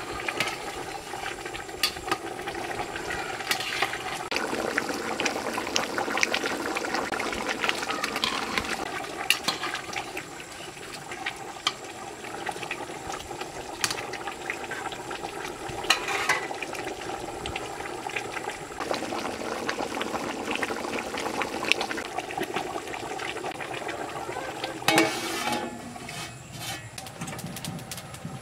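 Watery curry sloshing and bubbling in a steaming aluminium pot as a metal spatula stirs it, with frequent clicks and scrapes of metal against the pot. About 25 s in comes a louder clatter with some ringing, fitting the metal lid being set on the pot.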